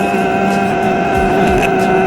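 Background music with sustained held notes, one of which drops out under a second in, over a steady noisy haze.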